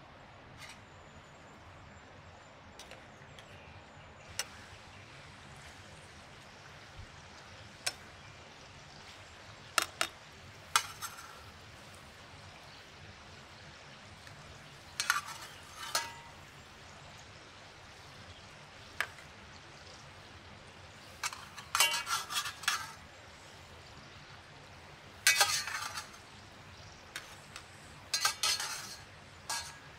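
A metal ladle clinks against a metal bowl and a steel frying pan as tomato halves are lifted into the oil: scattered sharp clinks, some in quick runs and some ringing briefly. Under them, faint steady sizzling of kebab patties frying in oil over embers.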